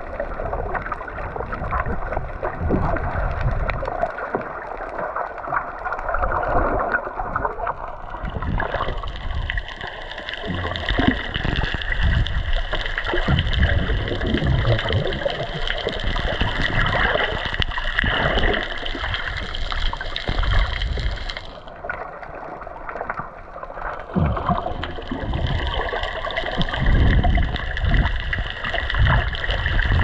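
Muffled water sloshing and gurgling heard through an underwater camera housing, with uneven low bumps and splashes as swimmers work a fishing net just below the surface.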